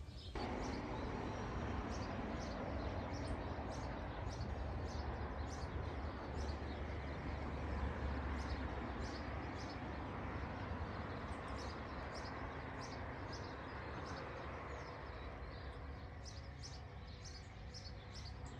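A small songbird chirping over and over, with a steady outdoor hiss and low rumble underneath. The bird is taken, without certainty, for a rufous-browed peppershrike (juan chiviro).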